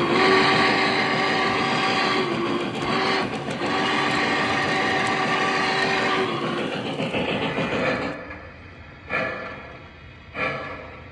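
Model N&W Class J steam locomotive's sound system blowing a long steam-whistle chord over the rumble of the train running close by. The whistle dips briefly twice and stops about six seconds in. After that comes a quieter stretch of slow, separate steam chuffs about one every second and a quarter.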